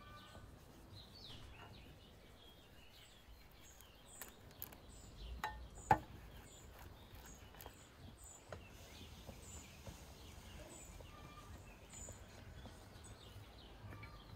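Faint outdoor ambience with small birds chirping: short high chirps repeat, closely spaced for a few seconds and then more sparsely. A single sharp knock comes about six seconds in.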